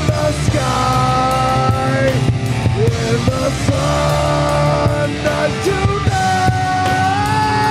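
Heavy rock band playing live: electric guitars and drums, with long held high notes that bend at their ends.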